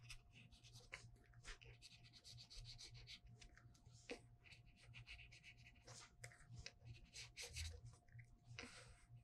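Faint scratchy rubbing of brush-pen tips, a water brush among them, stroking across drawing paper in many short, quick strokes.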